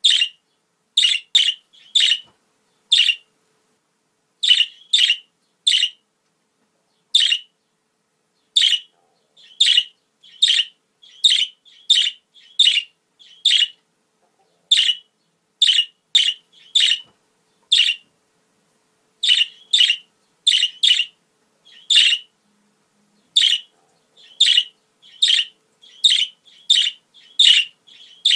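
Budgerigar calling: a long string of short, bright chirps, often in quick pairs or threes, roughly one to two a second.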